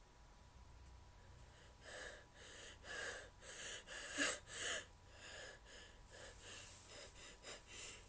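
A woman's short, shaky gasping breaths as a sneeze builds up. They start about two seconds in, come in a quick string that is loudest around the middle, and trail off into faint catches of breath.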